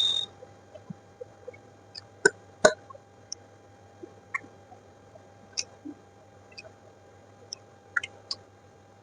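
Close-miked eating sounds: scattered wet mouth clicks and smacks of chewing, with a short burst at the start and two louder clicks about two and a half seconds in.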